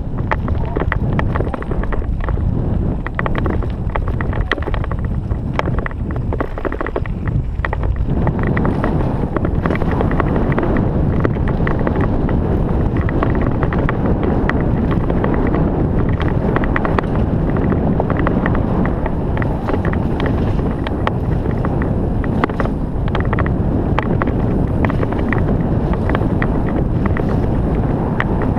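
Wind buffeting a helmet-mounted camera's microphone, mixed with a mountain bike clattering and rattling over rough, dry downhill trail. The rush grows louder and fuller about eight seconds in.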